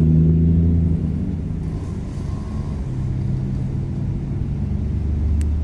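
Steady low engine rumble with a few held low tones that shift slightly in pitch, and a short click near the end.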